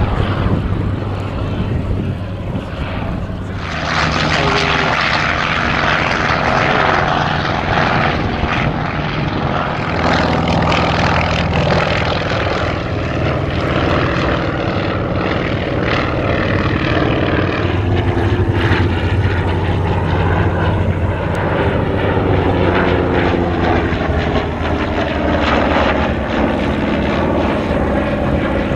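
Piston-engined propeller aircraft running loud and steady, with its engine note shifting slowly in pitch in the last several seconds.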